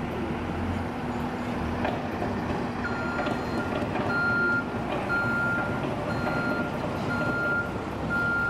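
Construction vehicle's reversing alarm beeping about once a second, starting about three seconds in, over the steady running of heavy road-works machinery engines.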